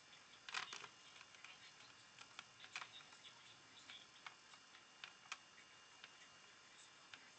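Faint, irregular clicks and light taps over near silence, the loudest little cluster about half a second in.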